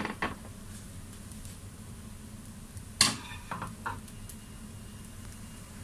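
A few short knocks of a wooden spatula against a frying pan of fried rice, the loudest about three seconds in, over a faint steady hiss.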